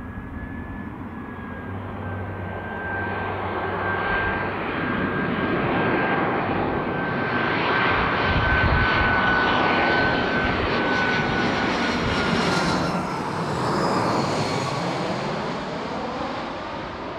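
Airbus A320 jet airliner on final approach with its gear down, flying low overhead: the engine noise grows to a peak and then fades as it passes. A steady high whine sits over the noise and slides slowly down in pitch.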